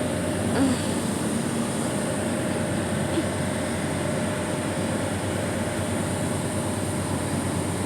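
Steady drone of a car ferry under way, its engines running and vibrating the deck, with an even rush of noise and no change in pitch.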